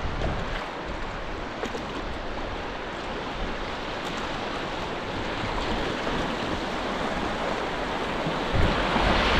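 Rushing river water running over a shallow, rocky stretch, a steady wash that grows louder near the end.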